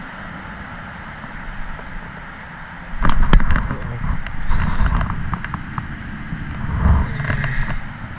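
Wind rumbling on a body-worn camera's microphone, with rustling and a few sharp clicks of handling noise that turn suddenly louder about three seconds in as the rod and a caught bluegill are handled.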